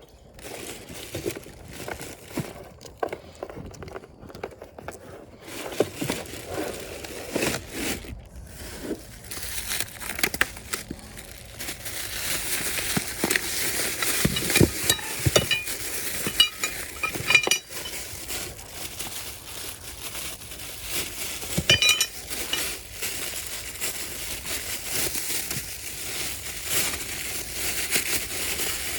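Handling noise: plastic or paper packaging crinkling, with scattered clinks and knocks of small hard parts, the crinkling busier in the second half.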